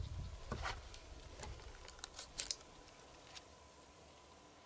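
A quiet stretch with a few faint, scattered clicks and rustles, about six in all, over a faint steady high tone.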